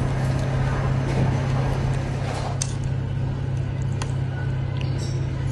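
Steady low hum of restaurant background noise, with a couple of light clicks of a metal spoon against a noodle bowl.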